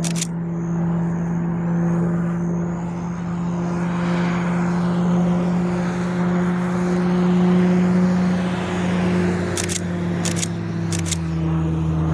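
Pilatus PC-21 turboprop flying a circuit: a steady propeller drone with a broad rush that swells in the middle. Camera shutter clicks once at the start and three times in quick succession about ten seconds in, and a lower engine note comes in near the end.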